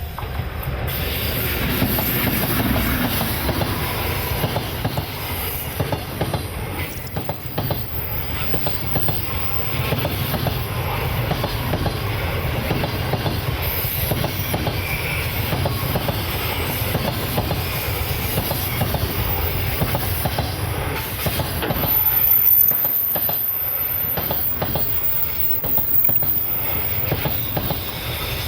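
A train passing close by on the rails, its wheels clattering over the rail joints in a long, steady rumble, briefly loudest about two-thirds of the way through.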